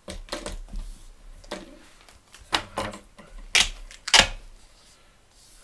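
Gaffer tape being pulled off the roll and worked around a book's cover by hand: a string of short crackling rips, the loudest about two and a half, three and a half and four seconds in.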